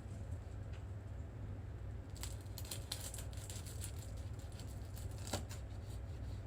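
Light clicks and rustles of handling, a quick cluster a couple of seconds in and one sharper knock near the end, over a low steady hum.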